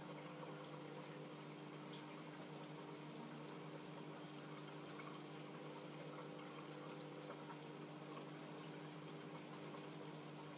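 Reef aquarium water circulating: a steady trickle and splash of moving water with a constant low hum under it and a few faint ticks.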